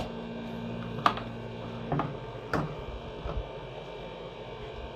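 Handling noises: a few sharp knocks and clicks, roughly a second apart, as the pressure washer's spray gun is pulled out of its packaging.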